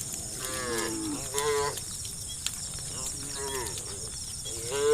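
Cows mooing: four calls in quick succession, some falling in pitch, the last the loudest, near the end.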